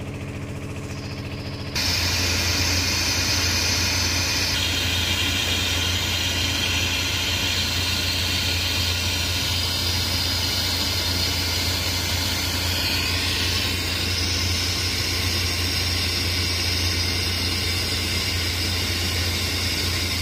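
Electric arc welding: the arc strikes suddenly about two seconds in, then a steady loud hiss over a low electrical hum continues while the weld runs. Before the strike a steady machine hum runs on its own.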